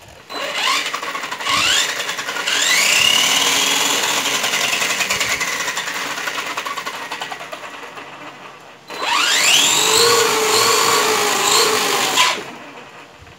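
Brushless electric motor and drivetrain of a DHK Zombie 8384 RC monster truck whining as the throttle is worked with the wheels spinning in the air. A few quick rising blips lead into a long run that winds down slowly, then a second run starts about nine seconds in, holds, and cuts off sharply.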